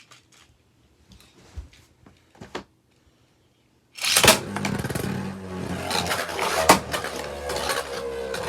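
A few light plastic clicks as a Beyblade is fitted to its string launcher, then about four seconds in a sharp launch followed by a steady whirring and scraping of the spinning top, with a faint tone that slowly falls in pitch.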